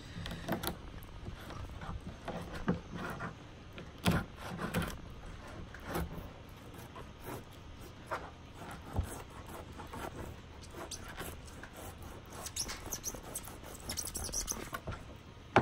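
Fillet knife working along a small mullet's backbone: soft slicing and scraping with scattered light knocks of the blade and fish on the table, and a few faint high squeaks near the end.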